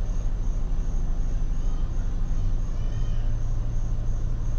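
2011 Chrysler Town & Country minivan's V6 engine idling steadily, running now that a working TIPM stands in for the broken one that caused the crank-no-start.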